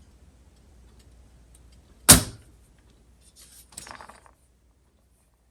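Metal parts of a jukebox mechanism being handled on a bench: one sharp knock about two seconds in, then a brief light clinking clatter a little under two seconds later.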